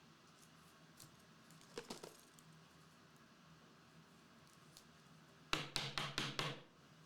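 Trading cards and card packs being handled on a table: a faint rustle about two seconds in, then about a second of crisp crinkling and clicking near the end.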